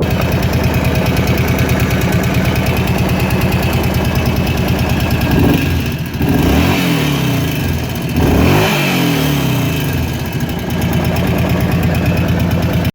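Kawasaki KVF 750 Brute Force ATV's V-twin engine idling with a rattling clatter from the top end, revved up and back down twice near the middle before settling to idle again.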